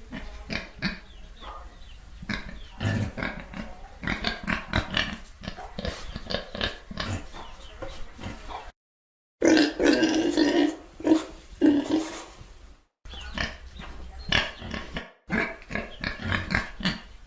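Pigs grunting and oinking in rapid short grunts, in several clips spliced together with abrupt silent gaps between them; the loudest, deepest grunting comes about ten seconds in.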